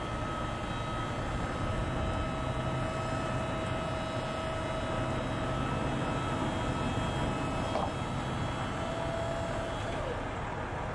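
Heavy truck's diesel engine running under way with road and wind noise, heard from outside the cab: a steady hum with a thin whine above it.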